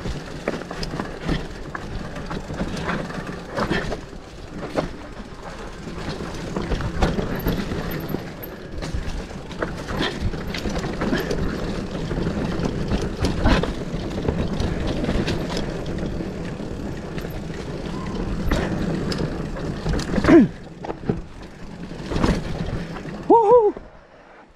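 Mountain bike ridden fast down a rough dirt trail: a steady rumble of tyres over dirt and rocks, with frequent knocks and rattles from the bike over bumps. Near the end the rumble drops off and two short rising-and-falling pitched calls are heard.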